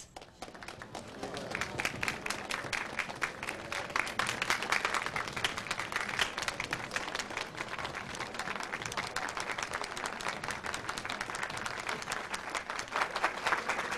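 An audience clapping: many hands applauding together, building up over the first second and going on steadily.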